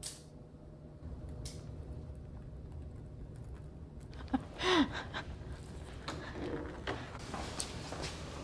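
Faint handling noise: light clicks and rustles of a clear plastic cupcake container as chocolate-dipped strawberries are set on frosted cupcakes, with one brief louder sound just under five seconds in, over a low steady hum.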